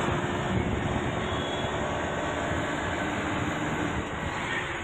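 Steady engine and road noise from riding in a moving vehicle, with wind buffeting the microphone.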